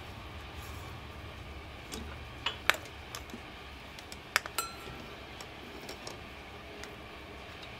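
Sharp metallic clinks of steel tap wrenches being handled against the tap and vise, in two pairs about two seconds apart, the last leaving a short ring, over a low steady hum.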